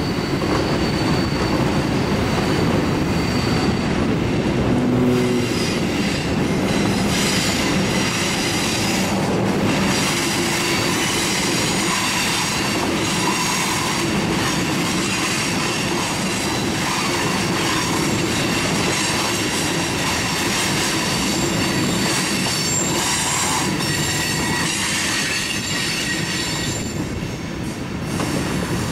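A long Norfolk Southern freight train's cars rolling slowly past on curved track, steel wheels squealing against the rails with high, steady tones over the rumble and clatter of the cars. The sound drops a little near the end as the last car goes by.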